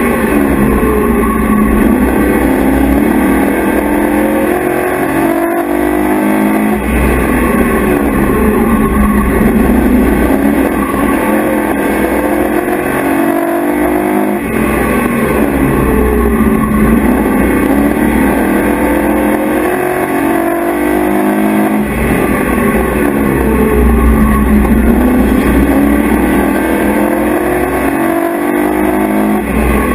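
Pro truck's race engine heard from inside the cockpit at racing speed. It runs loud, its pitch dropping and then climbing again over and over, as the truck lifts off and gets back on the throttle lap after lap.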